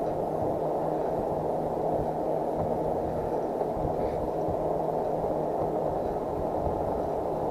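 Steady rushing wind and road noise of a moving e-bike ride, with a faint steady hum underneath.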